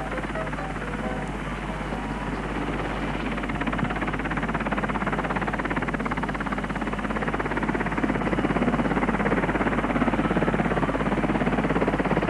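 Twin-turbine Westland Wessex helicopter hovering overhead, its rotor blades beating in a fast, even chop over a rushing engine noise that grows louder over the first few seconds and then holds steady.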